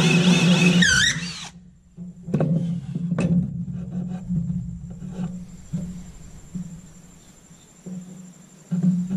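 Cordless drill with a hole saw cutting through a wooden truck bed, spinning down and stopping about a second and a half in. Then a couple of sharp knocks and light handling sounds follow.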